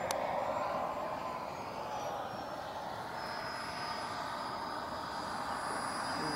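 Model jet turbine of a Sebart Avanti S RC jet running at reduced power on landing approach, gear down: a steady rush with a thin high whine that drops a little in pitch in the first few seconds, then holds. A brief click at the very start.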